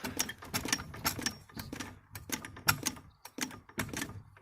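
Car jack being worked to bring it up into position: a quick, irregular run of metal clicks and clacks that stops near the end.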